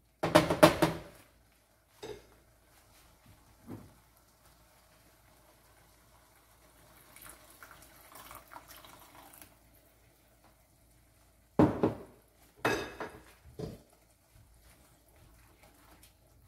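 Water poured from a small cup into a frying pan of thick masala gravy, a soft splashing pour in the middle. Utensils clatter and knock against the pan, loudest just after the start and twice a little past the middle.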